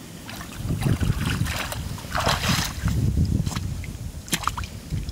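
Rubber boots wading and sloshing through shallow creek water, an irregular run of splashing that starts about half a second in and eases off about a second before the end, with a few sharp clicks late on.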